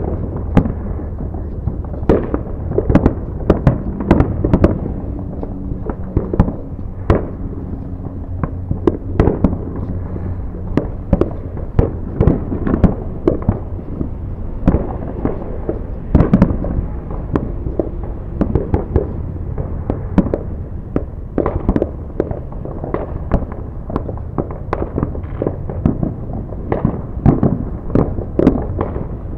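Fireworks going off: a dense, uneven run of bangs and pops, sometimes several a second, over a steady low rumble.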